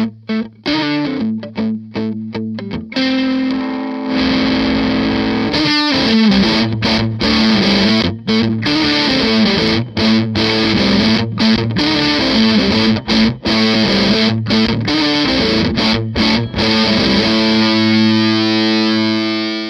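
Electric guitar played through a Fuzz Face fuzz pedal, a heavily distorted tone. It opens with short, choppy stabs for about three seconds, then moves into a run of sustained notes and ends on one long held note.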